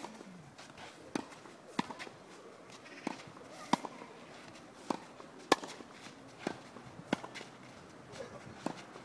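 Tennis ball being struck with a racket on a clay court about every two seconds, each crisp hit preceded by a softer knock of the ball bouncing a little over half a second before.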